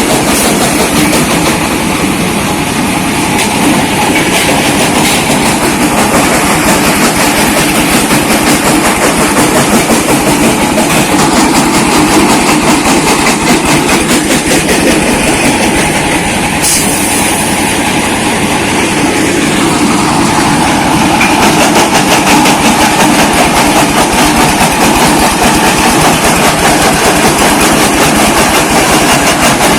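Small brick-breaking machine running, a loud, steady, fast clatter of brick being crushed.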